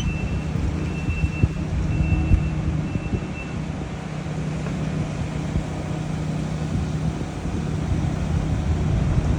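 Heavy demolition machinery's engine running steadily with a low drone, with scattered short knocks. A thin high whine comes and goes in the first few seconds.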